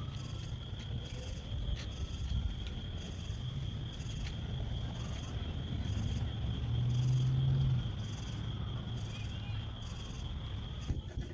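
Insects chirring steadily in a high, pulsing drone, over a low rumble that swells briefly about two thirds of the way through.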